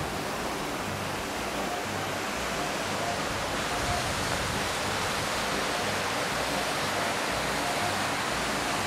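Steady rush of a fast mountain river running over rocks, an even hiss with no breaks.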